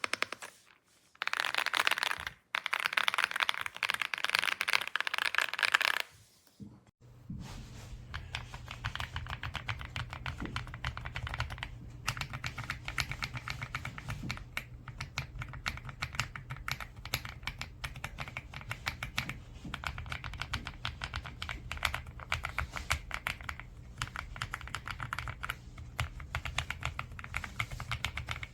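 Keys being typed on rapidly on an EPOMAKER x Aula F75 gasket-mount mechanical keyboard, a continuous run of clacking keystrokes. The first few seconds are louder and denser, there is a brief pause around six seconds in, and then steady fast typing follows.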